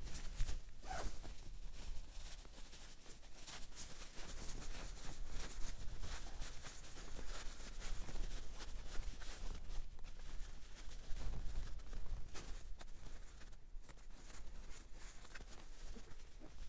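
Nylon shell of a Helsport Rago Spring down sleeping bag rustling and scrunching as it is stuffed by hand into its stuff sack, in an uneven run of short rustles.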